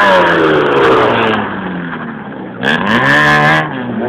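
Rally car engine: its note falls steadily for about two seconds as the car slows. About two and a half seconds in, a loud burst of revs rises and drops back.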